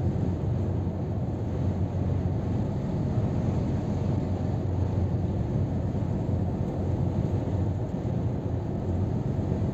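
Scania R500 truck cruising at motorway speed, heard from inside the cab: a steady low drone of engine and road and tyre rumble.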